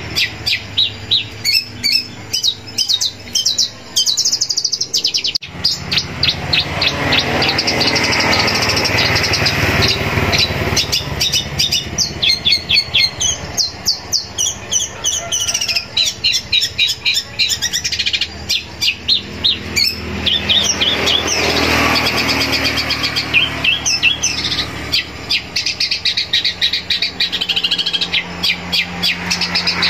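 Long-tailed shrike (cendet) singing without let-up: rapid runs of sharp, repeated high notes and chatters, broken by short pauses and packed with mimicked phrases of other birds.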